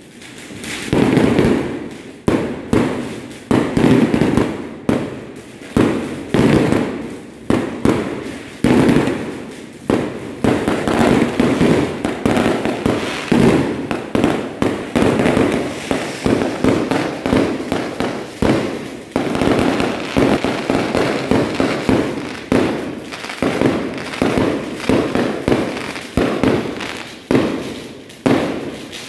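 Fireworks going off in a dense, continuous barrage: bang after bang in quick succession, each trailing off, with barely a pause between them.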